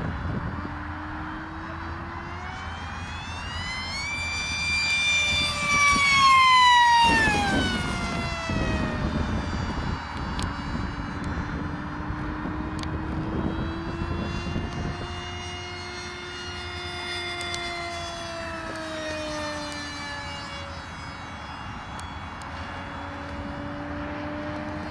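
Turnigy 3648 1450kv brushless motor on 6S spinning a 6x5.5 propeller on a FunJet RC jet in flight: a high-pitched whine that swells to its loudest about six seconds in and falls steeply in pitch as the plane passes, then carries on steadier and fainter, dropping in pitch again near the end.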